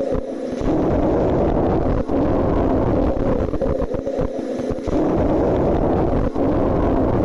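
Chest breath sounds recorded through a stethoscope, presented as the sound of COVID-19-infected lungs: a loud noise that swells and eases in cycles of about two seconds, one breath after another.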